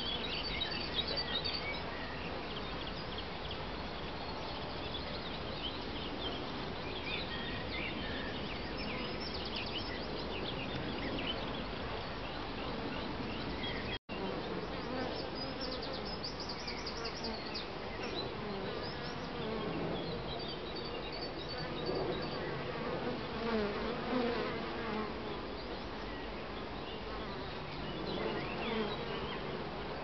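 A swarm of honeybees hanging in a cluster from a tree branch, thousands of bees giving a steady, dense buzzing hum. The sound cuts out for an instant about halfway through.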